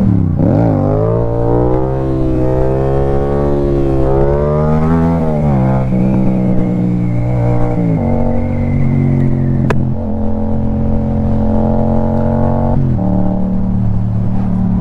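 Yamaha FZ-07's parallel-twin engine pulling hard through the gears as the motorcycle accelerates. The revs climb and drop back at each upshift through the first eight seconds or so, then hold steady at cruising speed, with one sharp click about ten seconds in.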